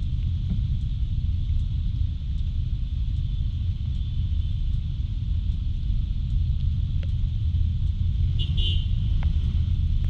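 Steady low rumble of a Kymco Like 125 scooter on the move, its 125 cc single-cylinder engine mixed with wind and road noise. A brief high-pitched tone sounds about three-quarters of the way in.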